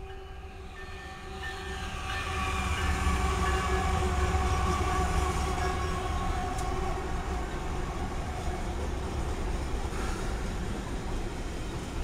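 A lashup of BNSF diesel-electric locomotives passing, their engines rumbling louder as they draw level, about a second or two in. Over this a train horn holds a long chord that fades out toward the end.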